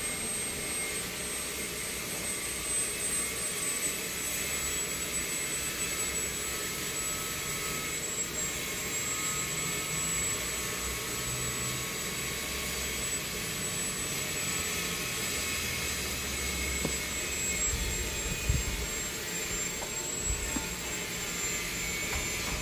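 Steady whooshing background noise with a thin, steady high-pitched whine over it, and a couple of faint soft knocks about three-quarters of the way through.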